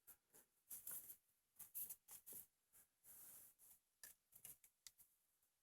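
Near silence, with a few faint, short clicks and rustles scattered through it.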